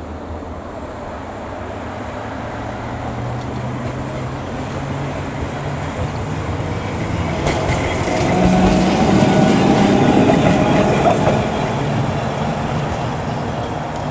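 Heritage electric tram running on the Blackpool tramway, its low motor hum rising in pitch over the first few seconds. The rumble of the wheels on the rails grows louder to a peak about two-thirds of the way through, then eases.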